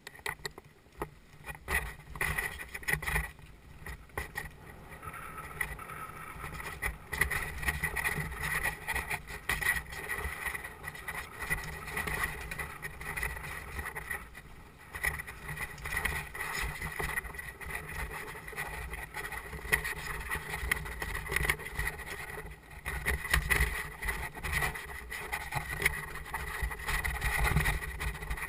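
Mountain bike riding fast down a rough dirt forest trail, heard from a camera on the rider. A continuous jolting rattle of bike and camera over bumps, with tyre noise and a low rumble. It starts abruptly as the ride sets off.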